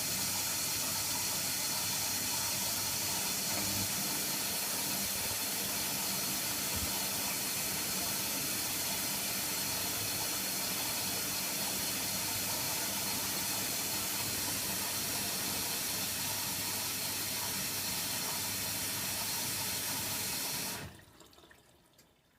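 Water rushing steadily into a Hoover Nextra HNWL7146 washer dryer through its inlet valve as it fills for a rinse. The fill cuts off sharply about twenty-one seconds in when the valve shuts.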